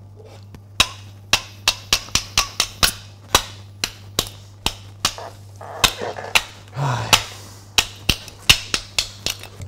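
A knife blade struck again and again against the glass neck of a beer bottle: about twenty sharp knocks in uneven runs, several a second at times.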